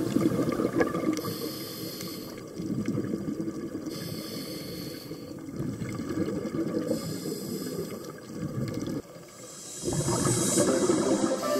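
Scuba diver breathing through a regulator underwater: a hiss about every three seconds, with rumbling bubbles of exhaled air between.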